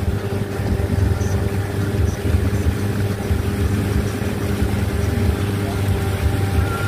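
Boat engine running at a steady speed, a constant low hum with overtones, over the rush of water from a passing hull's wake.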